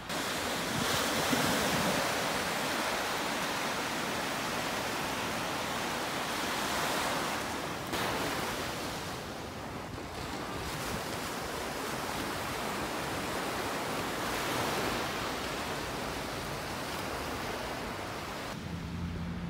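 Sea surf: waves breaking and washing onto the shore in slow swells. Near the end it gives way to a low hum.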